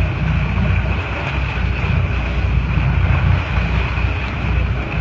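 Steady low rumble of a fishing boat under way, its engine and hull noise mixed with wind buffeting the microphone.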